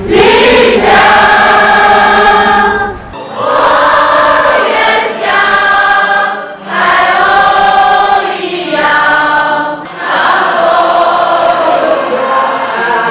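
Choir singing long held phrases, with brief breaths between them about every three seconds.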